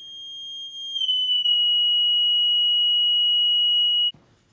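A high, pure sine-wave test tone, the signal being shown on the oscilloscope and measured by the meter. It swells in over the first second while its pitch dips slightly, then holds steady and cuts off suddenly near the end.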